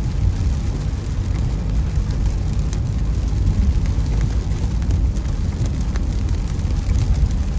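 Steady low rumble of a car driving on wet, water-covered roads in rain, heard from inside the cabin, with rain striking the car.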